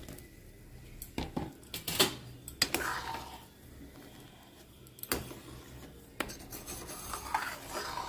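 Metal spoon stirring boiling dal in a steel pot, clinking and scraping against the pot's side several times at irregular intervals.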